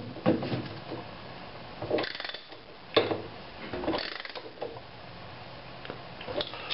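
Socket ratchet wrench clicking in short runs with pauses between, as it tightens the bolt that holds the agitator onto the shaft of a direct-drive washer.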